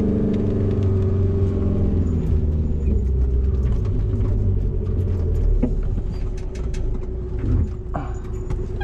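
A camper van's engine heard from inside the cab as it climbs a steep grade. Its note falls over the first couple of seconds, then settles into a steady low drone, with faint ticking of rain on the windshield.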